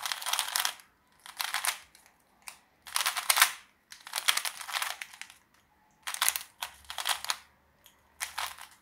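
Unmagnetised plastic Monster Go Pyraminx being turned fast by hand: about six short spurts of rapid clattering clicks with brief pauses between them, as it is solved out of the box.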